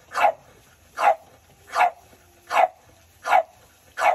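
A dog barking steadily, six sharp barks about one every three-quarters of a second.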